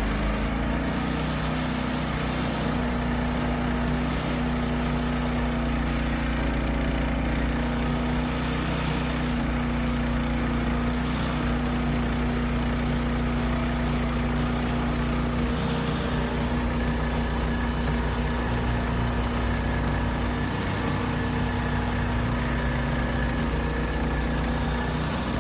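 An engine running steadily at an even speed with a constant low hum, on a piece of logging or sawmill machinery.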